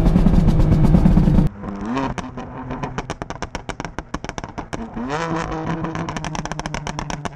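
BMW M4's twin-turbo straight-six through an aftermarket exhaust, loud at high revs for about a second and a half. After a sudden drop, the exhaust crackles and pops rapidly as the engine is blipped up twice, about two and five seconds in, the pops and crackles of an aggressive exhaust tune.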